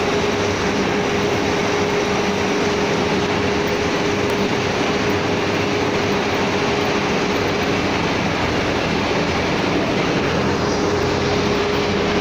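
Steady, loud din of running workshop machinery: an even mechanical roar with a constant hum running through it.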